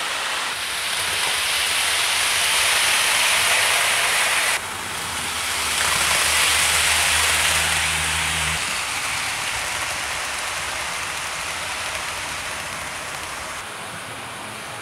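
00-gauge model trains running at full speed round the layout, their wheels and motors making a steady rushing rattle on the track that swells and fades as they pass. It drops suddenly about four and a half seconds in, swells again with a low motor hum for a few seconds, then slowly fades.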